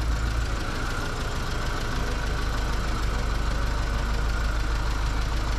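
BMW E30 Touring's engine idling steadily while the car is slowly manoeuvred across the workshop floor.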